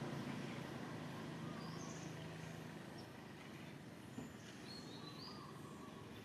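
A steady low engine hum from a passing motor vehicle fades away over the first three seconds. A few faint, short, high bird chirps follow, with a single small click about four seconds in.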